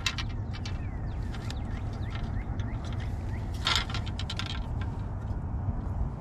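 Light clicks and a brief rustle, loudest a little past halfway, from hands handling fishing tackle, over a steady low rumble. Faint short chirps come in the first few seconds.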